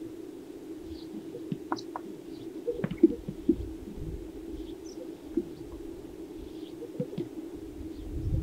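Greater sage-grouse displaying on a lek: irregular short pops, the loudest about three seconds in, over a steady low hum, with a few faint high chirps.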